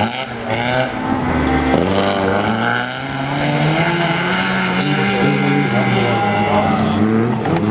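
Autocross race car engines revving hard on a dirt track, pitch climbing and dropping again and again through gear changes, with several cars running at once.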